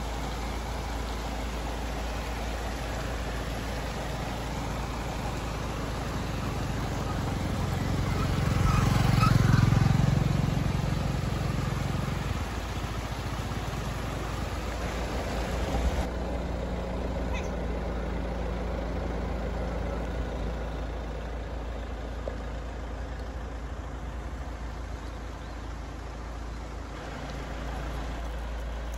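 A road vehicle drives past, its engine and tyre noise building to a peak about nine seconds in and then fading away, over a steady background rush of outdoor noise.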